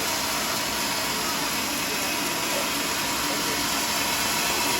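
Homemade sawmill running, a steady even machine noise with no break or change.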